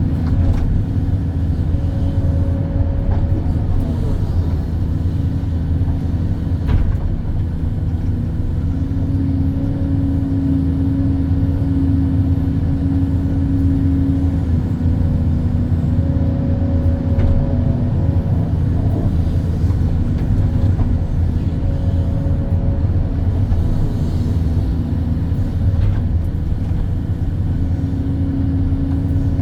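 Hydraulic excavator's diesel engine running steadily under load, with a hydraulic whine that comes and goes and shifts in pitch as the boom and bucket dig. A single sharp knock about seven seconds in.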